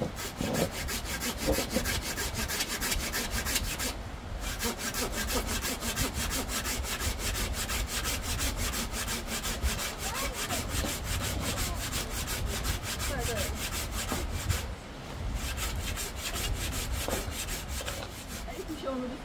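Hand sawing: quick, even rasping strokes of a saw, with brief pauses about four seconds in and again near fifteen seconds.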